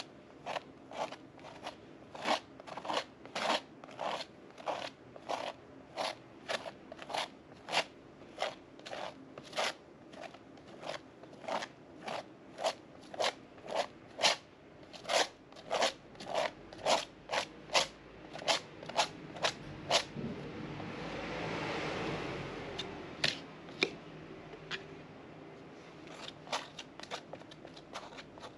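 Metal palette knife working modeling paste on a board: short scraping strokes, about two a second. About twenty seconds in, the strokes give way to a longer swell of noise, then pick up again more sparsely.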